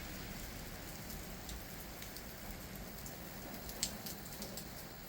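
Steady rain falling, with scattered drips and a sharper tap just before four seconds in.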